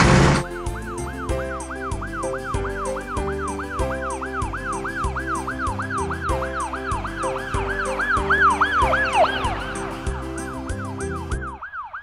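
Ambulance siren sound effect, a fast wail rising and falling about three times a second over bouncy children's background music. It grows louder and then drops in pitch around nine seconds in, as if passing by. A brief loud burst of noise comes right at the start.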